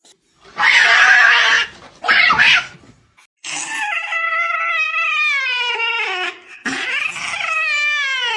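A cat hissing twice, then two long drawn-out yowls, the first falling slowly in pitch.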